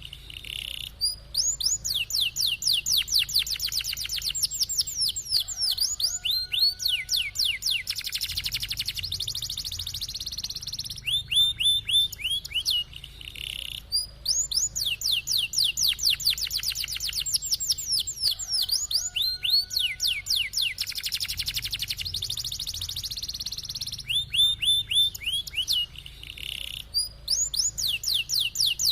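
Domestic canary singing rolling trills: fast runs of sweeping notes, high and low phrases alternating with short breaks. The same song sequence repeats about every thirteen seconds, as a looped training recording.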